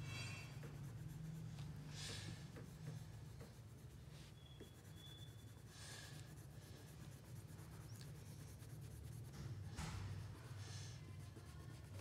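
Wax crayon scratching across paper in faint colouring strokes, coming in bursts every second or few.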